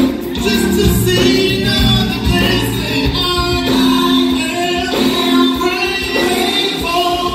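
A gospel vocal group of men and women singing together into handheld microphones.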